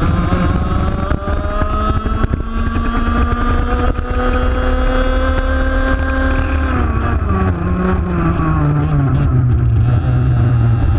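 125cc two-stroke TaG kart engine heard onboard, its pitch climbing for about six and a half seconds as the kart accelerates down the straight, then dropping as the driver lifts and brakes for a corner, running low near the end.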